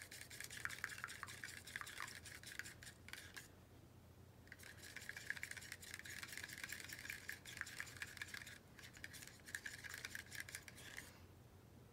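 A stick stirring paint in a small cup, scraping against the cup's sides and bottom in quick, faint, repeated strokes, with short pauses about four and nine seconds in.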